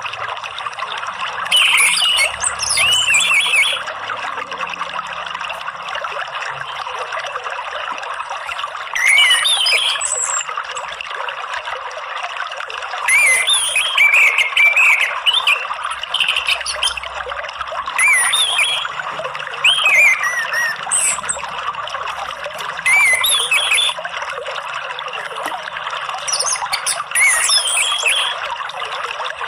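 Orange-headed thrush singing in quick, sweeping, high-pitched phrases about six times, over the steady trickle of running water.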